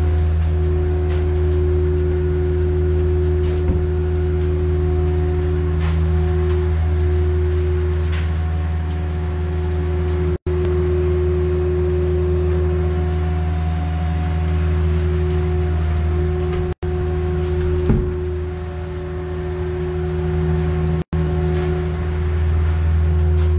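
A loud, steady low hum made of several held tones, which cuts out abruptly three times for a split second.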